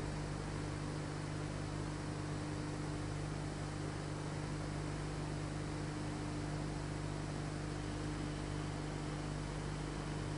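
Steady hiss with a low electrical hum, unchanging throughout, the noise floor of an old film transfer; no tool or carving sounds stand out.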